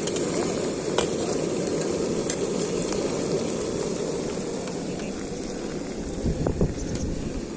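Fish pakoras deep-frying in hot oil in an iron kadai: a steady, dense sizzle, with a few light clicks about a second in and a couple of low knocks near the end.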